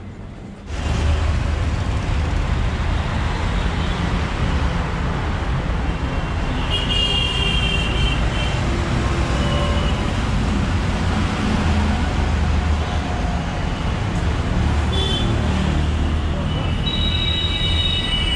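Street traffic noise: a steady rumble of engines, starting suddenly under a second in, with short high-pitched beeps about seven seconds in and near the end.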